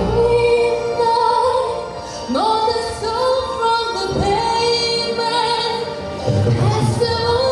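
A woman singing long held notes in an operatic style, with musical accompaniment; each note starts with a slide up in pitch.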